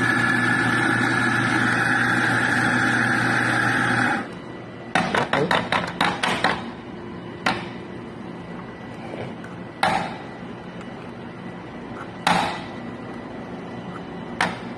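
An electric coffee machine's steady, evenly pitched hum for about four seconds that cuts off abruptly. A quick rattle of a dozen or so sharp clicks follows, then four single knocks a couple of seconds apart, as coffee gear is handled between shots.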